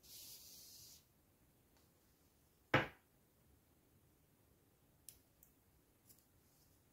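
Faint rustle of cotton yarn being drawn through crochet stitches with a yarn needle. About three seconds in comes a single sharp knock, the loudest sound, and near the end a few faint clicks as small scissors snip the yarn tail.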